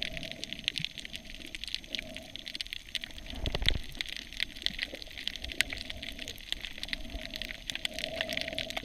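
Underwater sound picked up by a submerged camera: a dense, steady crackle of fine clicks, with a brief low thump about three and a half seconds in as a gloved hand handles an inflated puffer fish close to the lens.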